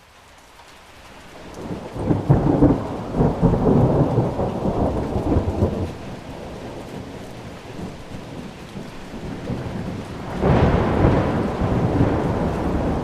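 Heavy rain with thunder. The rain fades in from silence, a rolling thunder rumble begins about two seconds in and lasts some four seconds, and a second rumble starts near the end.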